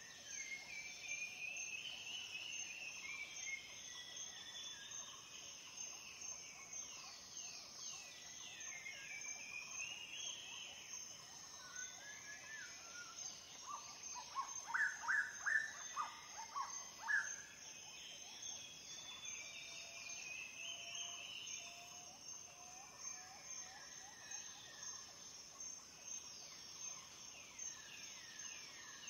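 Outdoor bird chorus: repeated falling chirps over a steady, evenly pulsing insect trill. About halfway through comes a louder run of roughly six short bird calls.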